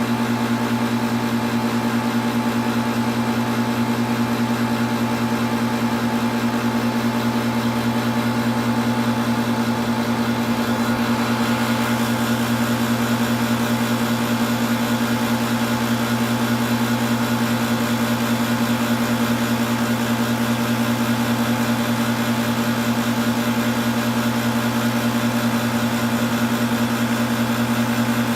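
Air-conditioning compressor running with a steady, even hum. There is no change in its sound.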